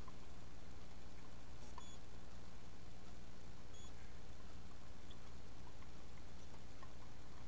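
Steady low electrical hum and a constant high-pitched whine from the recording equipment, with a few faint ticks about two and four seconds in.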